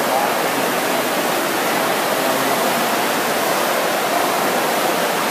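The steady, dense din of an indoor swimming pool hall during a race: swimmers splashing and spectators' voices blurred together by the echo into an even wash of noise.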